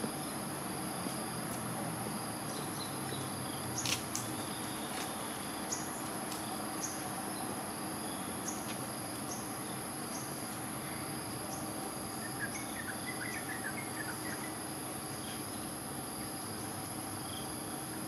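Evening insects keep up a steady, high-pitched drone over a constant low hum, with a sharp click about four seconds in, scattered faint ticks, and a brief cluster of faint chirps a little past the middle.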